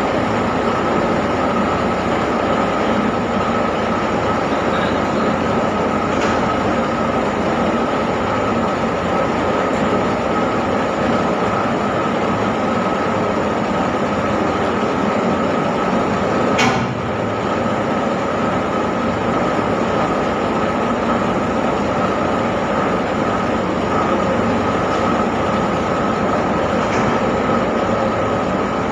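Tour boat's engine running steadily, with a steady whine over the noise and one sharp click about 17 seconds in.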